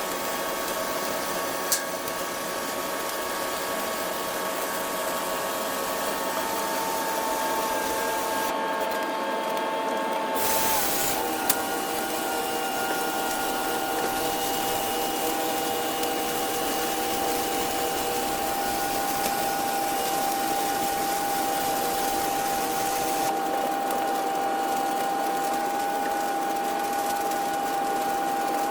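Welding machine running with a steady whine over an even hiss; the whine drops slightly in pitch about ten seconds in, and there are two sharp clicks, near the start and just after the pitch drop.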